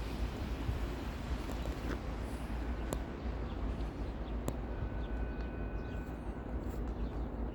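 Steady low rumble of wind buffeting the microphone, with a few faint sharp clicks and a couple of brief thin tones on top.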